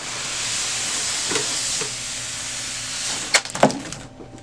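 Printer packaging being handled: a steady hissing rustle for about three seconds, then a few sharp clicks near the end.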